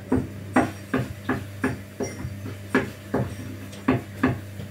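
Wooden spatula knocking and scraping against a frying pan while stirring food, in irregular taps about two a second.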